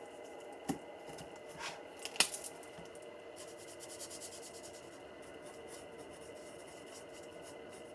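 Alcohol marker's bullet tip rubbing faintly on card while colouring in, with a sharp click under a second in and a louder click about two seconds in.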